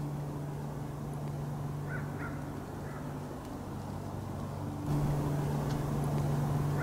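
A steady low mechanical hum, like a distant engine, that grows louder about five seconds in, with a few faint short bird calls around two and three seconds in.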